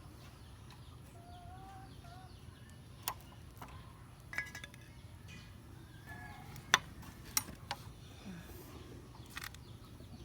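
Scattered small metallic clicks and clinks as the two retaining clips are worked off the front brake caliper's pad pin, with the loudest click about two-thirds of the way in. Faint short bird chirps sound now and then behind them.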